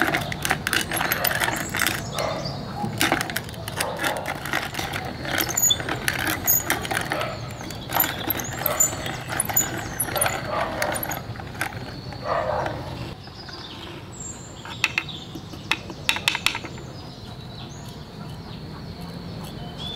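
Small hand-crank spice mill grinding whole spice seeds: irregular crunching and rattling as the crank turns, for about the first thirteen seconds. After that the grinding stops, leaving a few scattered clicks.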